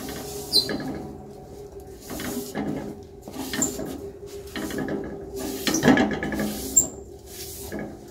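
Cloth wiping around the inside of a large aluminium karahi, rubbing it clean in a series of uneven scraping strokes, the loudest about six seconds in. A faint steady hum runs beneath.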